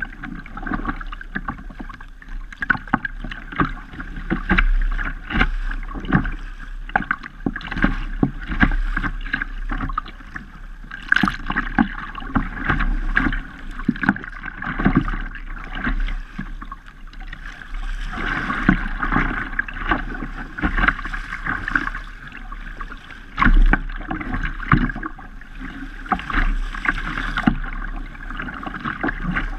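A kayak moving through choppy water: irregular splashing and slapping of waves against the hull, mixed with splashes from the paddle.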